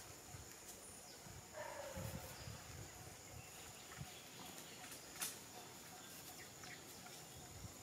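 Faint outdoor ambience with a steady high-pitched tone. About a second and a half in there is a short call that falls in pitch, with low rustling around it, and a single sharp click comes a little after five seconds.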